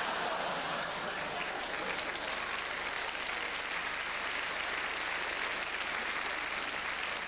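Studio audience laughing and applauding steadily, a dense clapping that holds evenly throughout.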